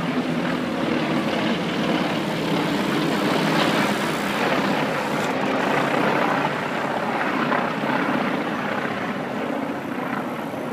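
An aircraft's engine drone, steady and unbroken, with a low hum under a broad rushing noise.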